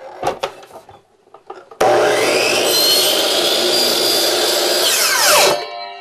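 A few light knocks as the wood is set against the fence, then a power miter saw starts suddenly about two seconds in. It runs loud and steady, with a high motor whine, as it cuts a 25-degree angle in a small piece of wood. Near the end it is switched off and the whine falls steeply as the blade spins down.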